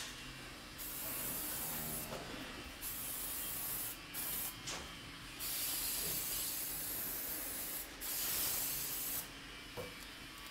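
Aerosol can of spray adhesive hissing in several bursts of one to two seconds or so, with short pauses between.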